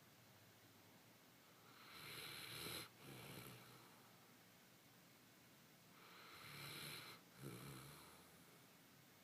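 Faint snoring, two breaths about four seconds apart. Each is a snore of about a second, then a brief break and a shorter, lower one.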